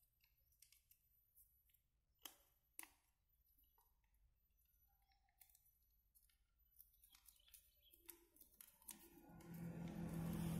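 Faint, sparse clicks and crinkles of a small sheet of paper being creased and folded by hand, two of them sharper about two and a half seconds in. Near the end a louder rushing sound with steady low tones rises.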